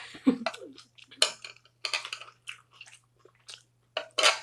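Close-miked eating sounds: a few short, crisp clicks and crunches of metal chopsticks and food, spaced irregularly, the loudest near the end.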